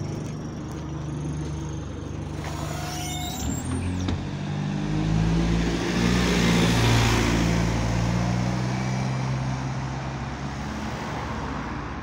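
Single-deck bus's diesel engine running, then pulling away and passing close by, the engine note stepping up as it accelerates and is loudest midway. A short hiss and squeal come a few seconds in, just before it moves off.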